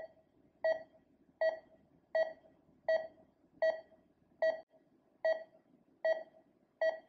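Bedside patient monitor's pulse beep: a short, steady electronic tone repeating evenly about every three-quarters of a second, like a heartbeat.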